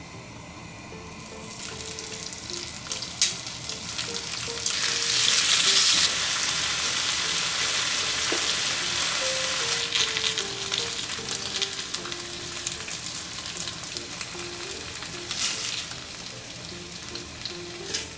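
Food sizzling in a hot frying pan. The sizzle builds about a second and a half in, is loudest around five to six seconds in, then runs on steadily and eases off toward the end.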